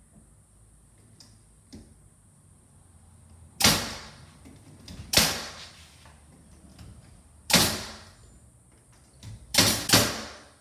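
Pneumatic finish nailer firing nails through door casing trim into the jamb: five sharp shots, each with a brief fading hiss, the last two in quick succession near the end.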